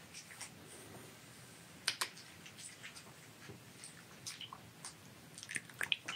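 Light, scattered clicks and ticks from a silver fox's claws on a wooden parquet floor as it walks, mixed with the crunch of dried treats being chewed. The sharpest pair of clicks comes about two seconds in, and a quick cluster near the end.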